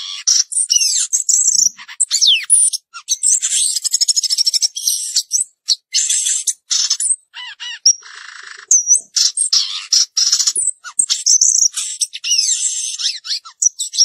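A caged samyong (garugiwa) songbird singing a fast, varied song of high chirps, sweeping whistles and trills, broken by short gaps, with a harsher buzzy phrase about eight seconds in.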